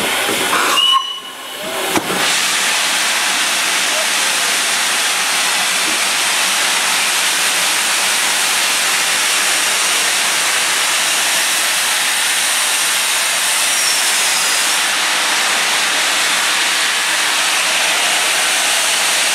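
Steam locomotive Tornado, an LNER Peppercorn class A1 Pacific, blowing off steam: a loud, steady hiss of escaping steam. It drops briefly about a second in, then holds.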